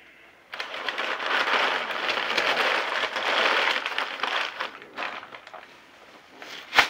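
Brown kraft packing paper crumpled and rustled by hand for about four seconds, then quieter rustling and one sharp knock near the end.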